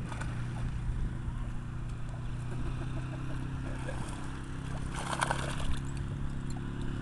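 Water splashing and sloshing as a basset hound paddles through river water, over a steady low rumble. There is a louder burst of splashing about five seconds in.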